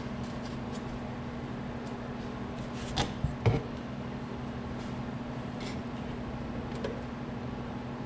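A few light knocks as a tachometer and a plastic instrument-cluster bezel are handled on a workbench: two close together about three seconds in and a fainter one near the end. A steady low hum runs underneath.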